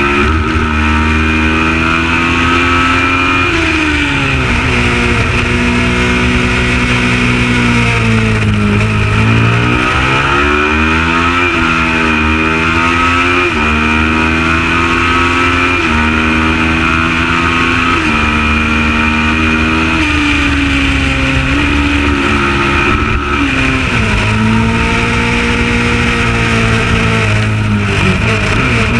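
Kawasaki ER650 Supertwin race bike's parallel-twin engine running hard, the revs climbing and stepping with gear changes, dropping and pulling up again about nine seconds in and several times near the end as it brakes and accelerates.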